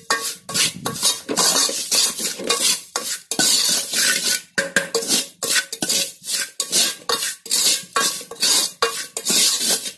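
Steel ladle stirring and scraping a thick spice paste in oil around the bottom of a metal pot, in quick repeated strokes of about two a second, with the pot ringing faintly under the ladle.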